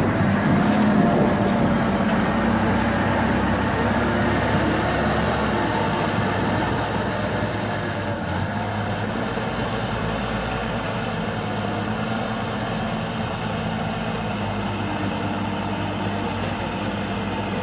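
Caterpillar 950F wheel loader's diesel engine running steadily as the loader drives and works the dirt. It is loudest at first, close by, and settles a little quieter after about six seconds as the machine moves off.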